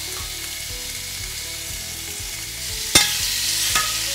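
Chicken thighs sizzling steadily on a hot cast iron grill pan. A sharp metal clack, the tongs striking the pan, comes about three seconds in, with a lighter one near the end.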